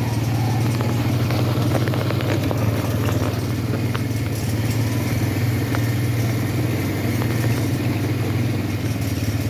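ATV engine running steadily, with a few light clicks and rattles.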